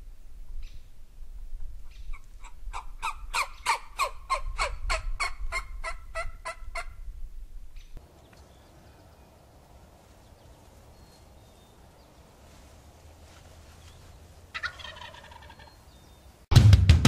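Wild turkey calling in a long run of evenly spaced notes, followed later by one short call. Rock music with heavy drums cuts in just before the end.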